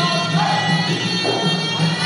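Traditional Kun Khmer ring music: a reed pipe (sralai) playing a wavering, gliding melody over a pulsing drum beat.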